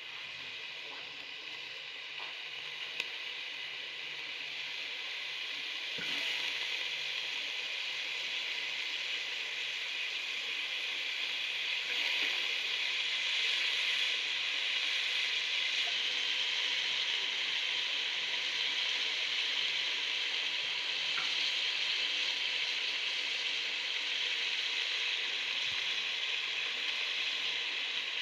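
Cauliflower and potatoes frying in oil and spices in a metal degchi: a steady sizzle that grows louder over the first dozen seconds, then holds. A single small click about three seconds in.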